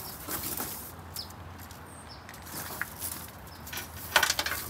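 Gloved hands handling a Security Chain Company Super Z LT cable snow chain on a tyre: rustling and scraping of the coiled steel cable against the tyre, with scattered small clicks and a louder cluster of rattles near the end.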